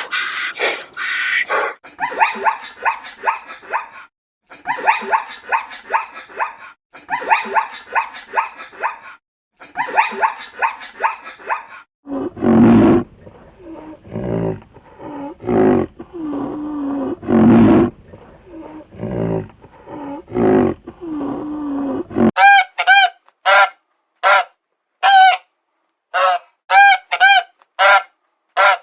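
A string of animal calls in three edited sections: dense, rapid calls for about the first twelve seconds, then lower, longer calls for about ten seconds, and from about 22 seconds a run of short, separate calls, roughly two a second.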